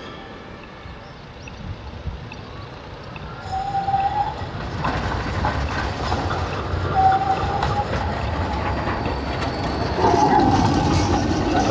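Low-floor articulated tram rolling through a curve and passing close. A low rumble of wheels on rail grows louder, with short high wheel squeals on the curved track about three and a half, seven and ten seconds in.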